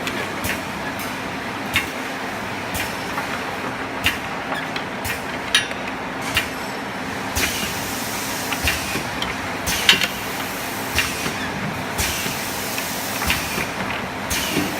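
Automatic vacuum perfume bottle filling and crimping machine running: a steady mechanical hum with irregular sharp clicks and knocks from its working parts.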